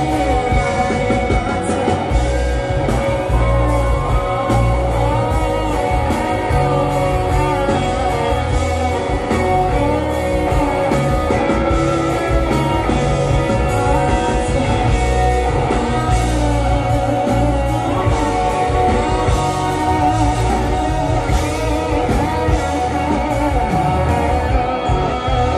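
Live rock band playing an instrumental passage, with electric guitar lead over bass guitar.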